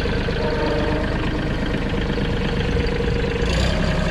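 Mahindra 2126 compact tractor's three-cylinder Mitsubishi diesel engine idling steadily. A short hiss comes about three and a half seconds in.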